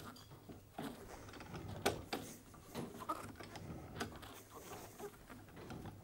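Wheel-type steel pipe cutter being tightened and worked round a low carbon steel pipe held in a pipe vise: faint, irregular metallic clicks and scrapes.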